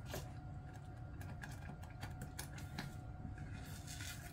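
Plastic spoon stirring thick soup in a stainless steel saucepan: irregular small clicks and scrapes against the pan, with a faint steady whine beneath.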